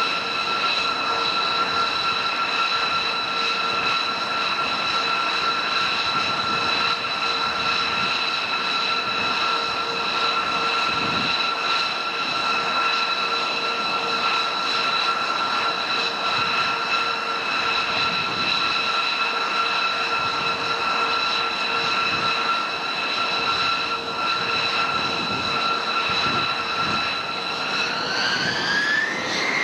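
Jet aircraft engines running with a steady high whine over a rushing noise, the whine rising in pitch near the end.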